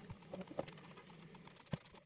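Light clicks and two sharp knocks about a second apart, from hands working on a stainless-steel kitchen trolley frame with pull-out wire baskets.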